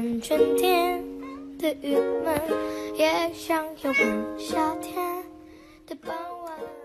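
Background music: a light tune of plucked strings, with a wavering high melody line over held notes.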